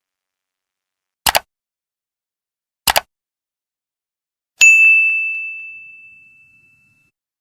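Two short double clicks about a second and a half apart, then a single high bell-like ding that rings out and fades over about two seconds, in an otherwise silent edited intro.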